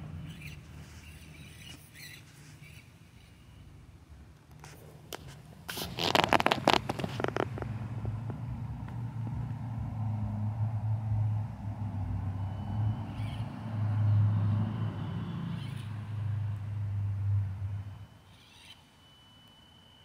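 Axial SCX24 Deadbolt 1/24-scale RC crawler's small electric motor and gears whirring in swells as it crawls over rock, stopping about two seconds before the end. A burst of clicks and scrapes, the loudest sound, comes about six seconds in.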